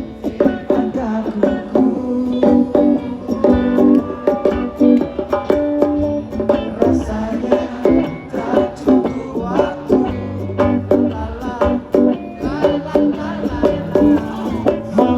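Live band playing an instrumental passage, led by quickly plucked strings over a bass line.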